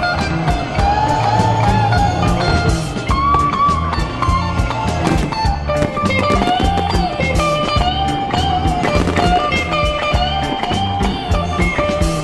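Music with a guitar melody over a steady bass and drum beat.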